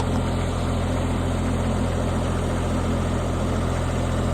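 Small 23-horsepower diesel engine of a Rippa NDI665 mini skid steer running steadily at an even pitch.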